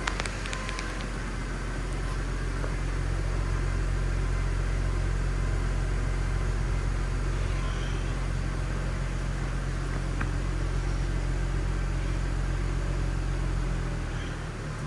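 A 2008 Mercedes C350's 3.5-litre V6 engine running steadily with a low hum. It grows louder about two seconds in and eases back near the end. A few sharp ticks are heard right at the start.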